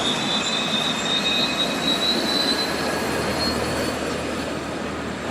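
Airliner engines running, heard from the cockpit: a steady rushing noise with a thin high whine that slowly rises in pitch and fades out near the end.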